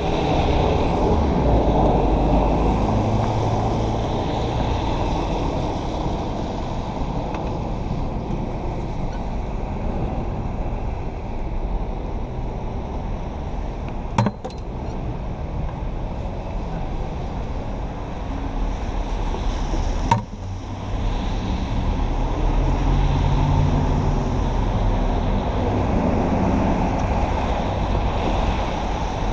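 Steady rushing wind noise on the microphone mixed with street traffic on a wet road, with two short knocks about fourteen and twenty seconds in.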